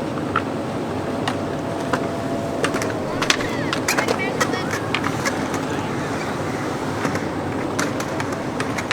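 Skateboards clacking and rolling at a skate park, with voices. Under them is a faint steady siren tone from a Federal Signal 3T22A that dips slightly in pitch and fades out about three or four seconds in, as the siren winds down.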